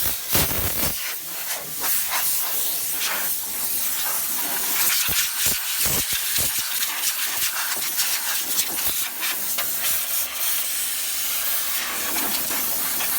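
Compressed air from an air compressor's blow nozzle hissing in a continuous blast, blowing packed sawdust out of a desktop PC, wavering in strength.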